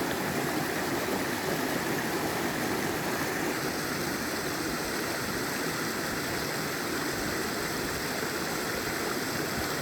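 Waterfall: water pouring and rushing steadily, an even noise that turns a little brighter from about three and a half seconds in.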